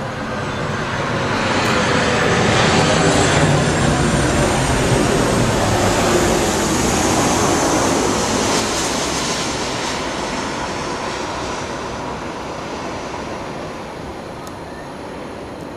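Boeing 737-800's CFM56 jet engines passing low overhead on landing approach: loud engine noise that swells over the first few seconds with a falling whine, then slowly fades as the airliner moves away.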